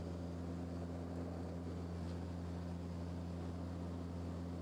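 Steady cabin drone of a turboprop airliner in flight: a low propeller hum with a few steady tones above it, over an even rush of air and engine noise.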